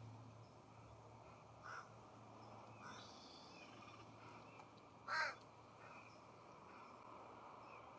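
Two short, harsh calls from a corvid: a weaker one about two seconds in and a louder one about five seconds in. A faint steady low hum lies underneath.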